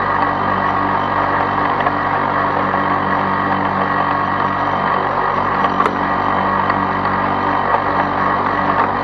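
Lawn-Boy two-stroke push mower engine running steadily at constant speed while mowing, with a few brief sharp ticks about six and eight seconds in.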